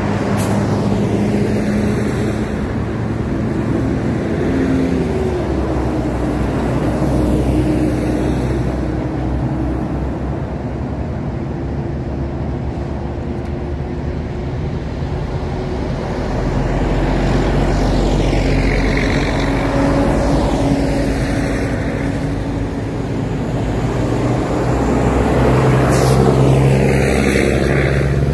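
Tour buses driving past one after another, their engines running loud with a steady low drone. The sound swells and sweeps as each bus passes, and grows again near the end as the next bus comes up.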